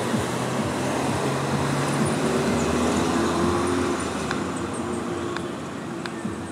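Road traffic noise, with a motor vehicle's low engine hum swelling over the first few seconds and fading after about four.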